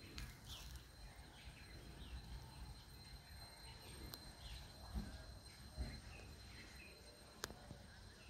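Faint outdoor ambience: a low rumble with a few faint, short bird chirps and a couple of soft clicks. The approaching train is still too distant to stand out.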